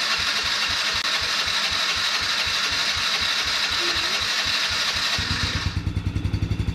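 Electric starter cranking the carbureted Can-Am engine with the choke on, a whirring starter motor over a regular chug; about five seconds in the engine catches and settles into running, and the starter whir cuts off just after.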